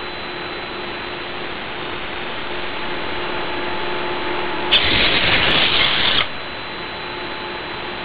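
Hexapod robot's servo motors whirring in one burst of about a second and a half midway through, over a steady hiss with a faint hum.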